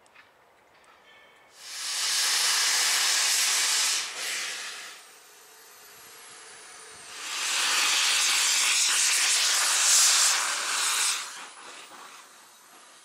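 Rebuilt Bulleid Merchant Navy class steam locomotive 35018 British India Line venting steam low at its front through open cylinder drain cocks: two loud, even hisses, the first lasting about two seconds and the second about four.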